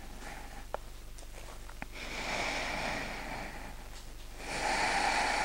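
A person breathing deeply while holding a yoga pose: two long, audible breaths, one about two seconds in and another near the end, with a couple of faint clicks before the first.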